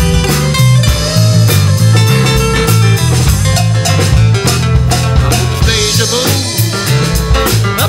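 Live folk-rock band playing an instrumental break with guitar and drum kit, a steady beat under a moving bass line.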